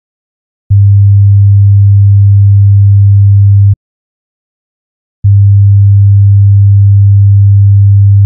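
Sine-wave test tone for a frequency listening test: a steady, low pure tone at about 100 Hz. It sounds for about three seconds, cuts off, and starts again about a second and a half later, with a faint click at each start and stop.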